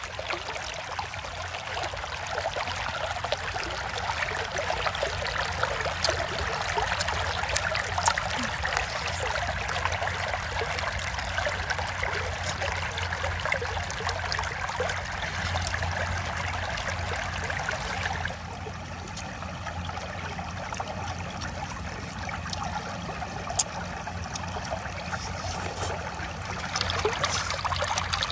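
Steady trickling of running water, slightly softer for a stretch in the second half.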